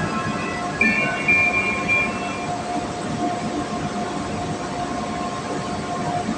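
Loud, steady mechanical background noise with a constant hum, and a high whining tone from about a second in that fades out a couple of seconds later.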